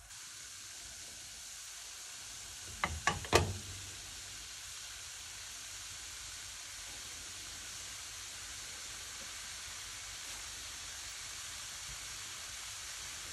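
Seasoned beef steak sizzling steadily in hot oil in a non-stick frying pan. A few sharp clicks and knocks come about three seconds in.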